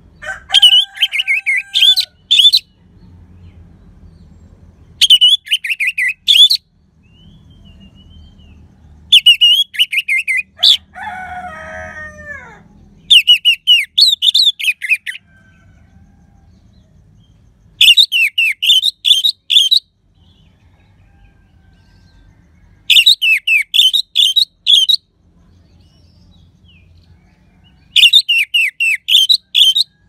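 Orange-headed thrush singing: seven short, loud phrases of rapid down-slurred whistles, each about two seconds long, coming every four to five seconds. About eleven seconds in, a lower call falling at its end sounds between two phrases.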